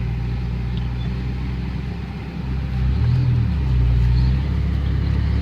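An engine running steadily, its low hum growing louder about two and a half seconds in.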